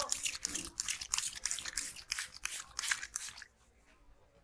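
Hands rubbing briskly over hair and scalp in a head massage: quick brushing strokes about four a second, stopping about three and a half seconds in.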